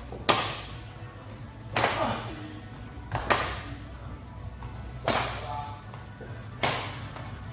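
Badminton rackets striking a shuttlecock in a rally of long clears: five sharp hits about a second and a half apart, each echoing briefly in a large hall.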